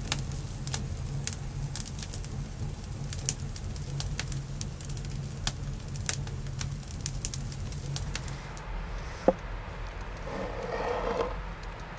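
Wood campfire crackling, with frequent sharp pops over a low steady rumble. Near the end, a large knife slices through a ripe tomato.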